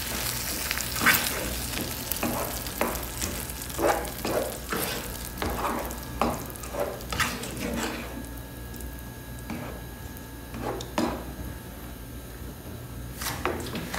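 Plastic spoon stirring meatballs in tomato sauce in a non-stick frying pan, in irregular scraping strokes that come less often in the second half, over a faint sizzle of the sauce cooking on low heat.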